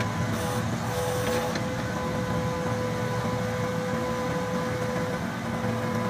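Case compact track loader's diesel engine running steadily under load as the HS57 manhole cutter attachment is raised out of its cut, with a steady high tone held over the engine.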